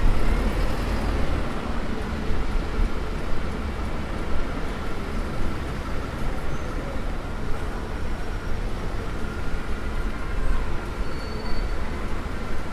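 City road traffic on a wet street: cars, a taxi and buses passing close by, a steady rumble of engines and tyres with no single standout event.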